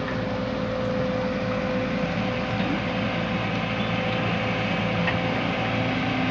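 JCB excavator's diesel engine running steadily under work, with a constant whine held at one pitch above the engine noise.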